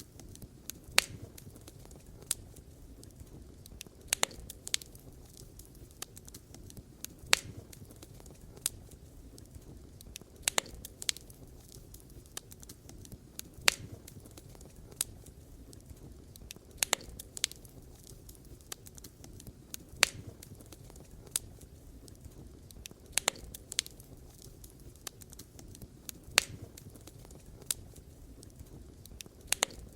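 Campfire crackling: sharp pops and snaps every second or two over a soft, steady low background.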